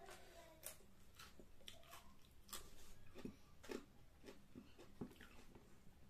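Faint chewing of food with scattered soft mouth clicks, irregular and quiet.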